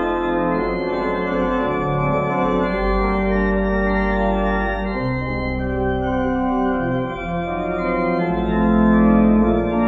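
Two-manual church organ playing slow, sustained chords over deep bass notes that change every second or two.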